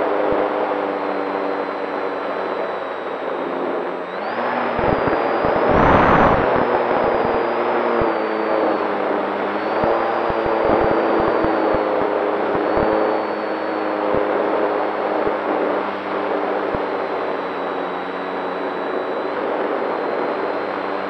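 Electric motor and propeller of a radio-controlled foam seaplane heard from its onboard camera: a steady whine that rises in pitch about four to six seconds in as the throttle is opened, then settles, with wind rushing over the microphone loudest around six seconds in.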